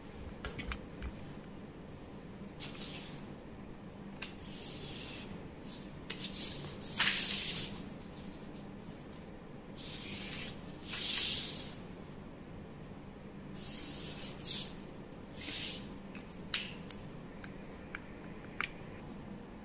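A marker pen drawn along a plastic set square across pattern paper: several short strokes, each under a second, with small clicks and taps between them as the square is moved.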